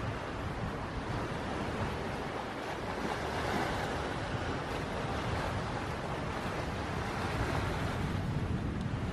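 Sea wash rushing past the hulls of a sailing catamaran making way in a fresh breeze, with wind buffeting the microphone. The wash swells a little about three to four seconds in.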